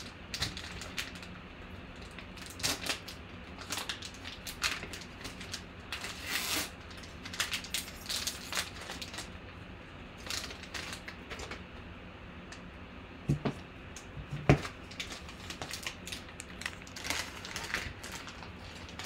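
Foil wrapper of a trading-card pack crinkling and tearing as it is opened by hand, with the rustle of a card in a clear plastic holder being pulled out and handled. Two sharp knocks, about a second apart, some two-thirds of the way in.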